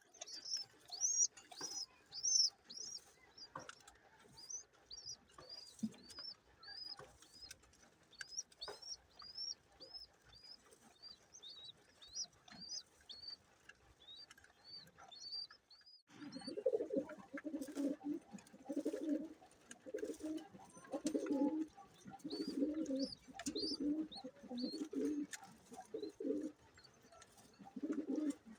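Pigeon squabs peeping in rapid, high squeaks, two or three a second, the begging calls of hungry chicks. About halfway through this gives way abruptly to low, pulsed pigeon cooing.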